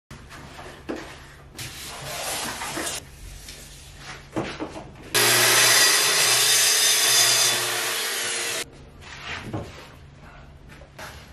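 Wood being scraped and rubbed by hand for a few seconds. Then a power tool runs at a steady speed for about three and a half seconds, cuts off abruptly, and more handling and rubbing of wood follows.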